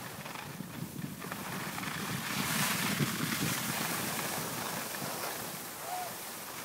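Wind rushing over the microphone while skiing downhill, with the hiss of skis sliding over snow. It swells louder through the middle and then eases.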